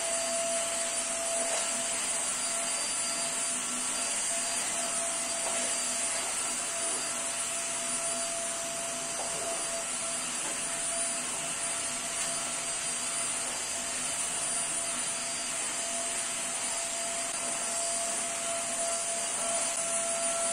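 Corded stick vacuum cleaner running steadily, a constant motor whine over the rush of air, as its floor head is pushed back and forth over an artificial grass mat.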